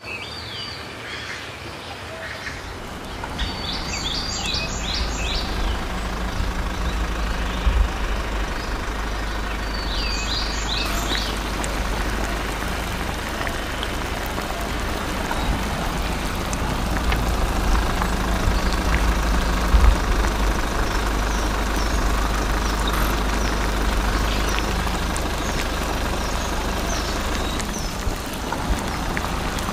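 Small DC motor driving a homemade belt-driven mini water pump, running with a steady hum that gets louder about three seconds in, with water splashing. Birds chirp a few times in the first eleven seconds.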